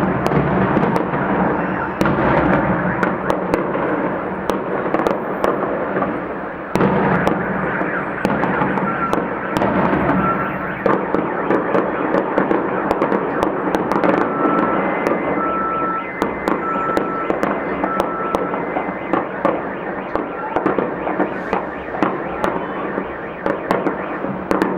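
Fireworks salute: a dense, continuous run of shell bursts, bangs and crackling with no pause. Through the middle a high tone beeps on and off over it.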